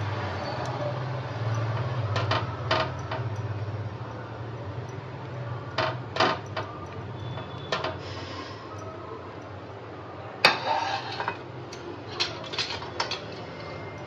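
Kitchenware clinking and knocking: about ten sharp clicks of a plate and a non-stick frying pan on a gas stove, the loudest about ten seconds in, over a low steady hum that fades out about halfway.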